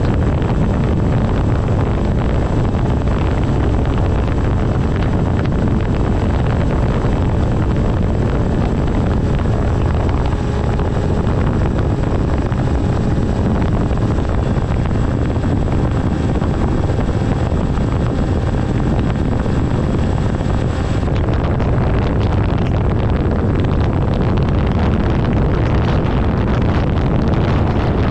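Wind rushing over an onboard camera's microphone on a Volantex Ranger 1600 RC plane in flight, with the steady drone of its electric motor and propeller. The sound is continuous and heavy in the low range.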